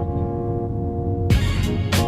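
Background music: a held chord, with drums and a beat coming in about 1.3 seconds in.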